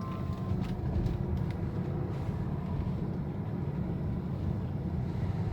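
Steady low road and engine rumble inside the cabin of a BMW 520d F10 diesel saloon driving while the steering is turned slightly left and right, with no clicking from the newly replaced front CV joint: the clicking noise is gone.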